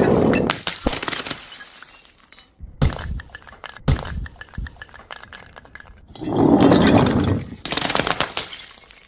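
Glass bottles smashing in several separate crashes, with shards clinking and scattering. There are sharp cracks about three and four seconds in, and a longer, louder crash after six seconds.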